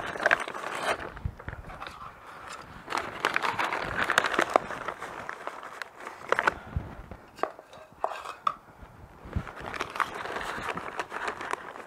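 A scoop digging into a bag of potting soil, with the bag crinkling and soil scraping and rustling in irregular bursts, broken by a few sharp clicks.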